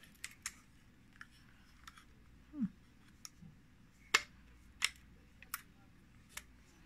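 Konica C35 35 mm rangefinder camera being handled while film is loaded: a scattering of small, sharp clicks and snaps, the two loudest about four and five seconds in. A brief low falling tone comes about two and a half seconds in.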